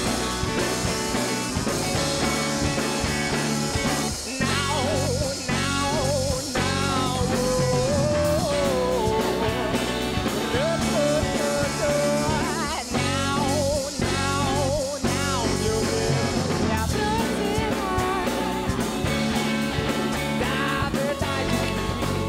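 Live rock band music with electric guitar. A wavering lead melody slides and shakes in pitch over a steady low accompaniment.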